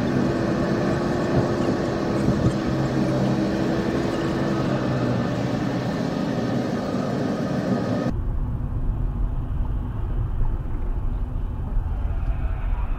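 Road and engine noise inside a moving car on a highway, recorded by a dashcam. About eight seconds in the sound changes abruptly to a duller, lower rumble.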